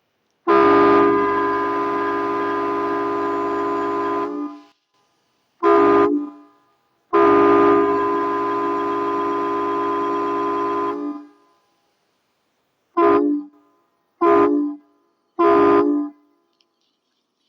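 Train horn sounding a chord of several tones in six blasts: long, short, long, then three short blasts, the pattern played as the conductor's salute.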